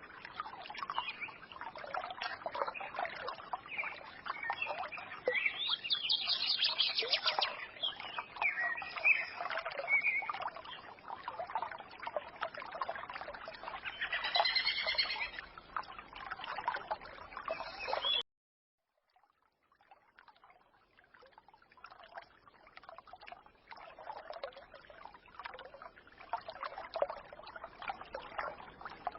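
Forest stream trickling steadily, with small songbirds chirping and twittering over it, including a short warbling trill. About two-thirds of the way through the sound cuts off suddenly to silence for a moment, then the stream carries on more quietly with fewer bird calls.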